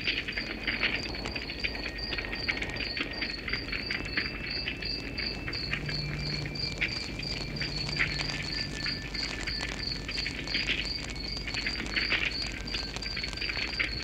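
A wood fire crackling with scattered snaps and pops, while a cricket chirps in a steady, even rhythm of about four chirps a second.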